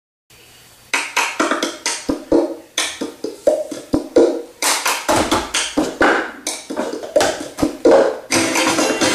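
Cup-song rhythm on a plastic cup: hand claps alternating with the cup being tapped, slapped and set down on the floor in a steady, quick beat.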